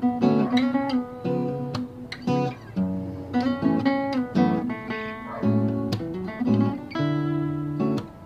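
Two acoustic guitars, one a Fender cutaway acoustic-electric, playing together: plucked and strummed chords over bass notes.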